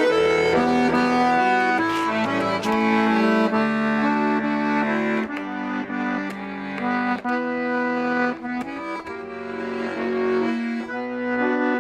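Garmon (Russian button accordion) playing the instrumental introduction to a song: held chords over bass notes, changing every second or so.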